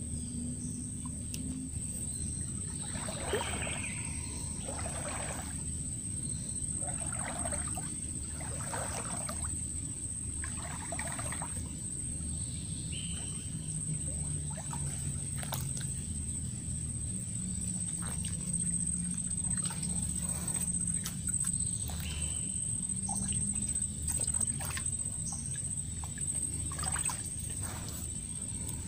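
Water sloshing and splashing in short bursts, about one a second for a stretch, as someone wades through a shallow mangrove creek. A thin, steady high-pitched whine runs underneath.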